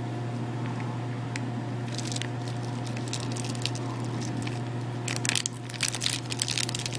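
A steady low hum, with a few scattered clicks and, from about five seconds in, a run of quick crackling clicks.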